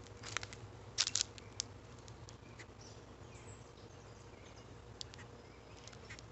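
A few sharp clicks and taps, loudest about a second in, as a freshly caught fish is handled on a bamboo pole and line, with faint chirps in the background.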